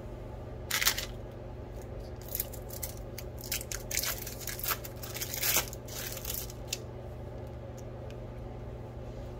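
Cheese slices being peeled apart by hand and laid on bread: a string of short, sticky peeling and rustling snaps over the first seven seconds, over a steady low hum.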